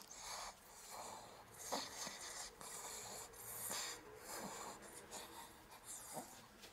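A Chihuahua close up makes soft, irregular scratchy rustles, with a few small clicks, as it gives its paw to a hand.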